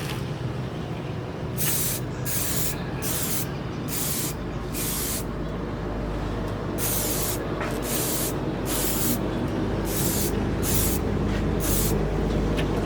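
About fifteen short bursts of hissing spray, each under half a second, at irregular intervals over a steady low machine hum.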